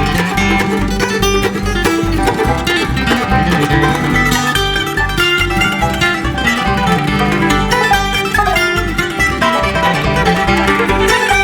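Live bluegrass band of mandolin, five-string banjo, acoustic guitar and fiddle playing an instrumental break over a steady beat, with no singing.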